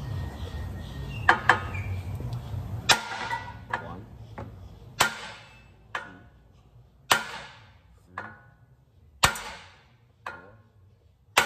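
A steel hammer striking the front steering knuckle of a 2006 Honda Civic Si to shock the lower ball joint loose from the knuckle. There are about ten ringing metal strikes starting a second or so in. From the middle on, the heavy blows come about two seconds apart, with a lighter strike between each.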